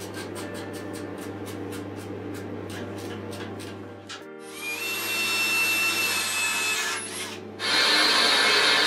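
Background music, then a cordless drill running in two bursts, about halfway in and again near the end, working at the steel pillar under the bench grinder motor's mount; the second burst is the louder.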